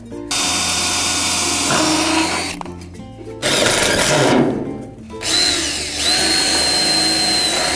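Makita cordless drill running in three bursts on a galvanized steel corner bracket of a carport frame; in the last burst its motor whine rises, then holds steady.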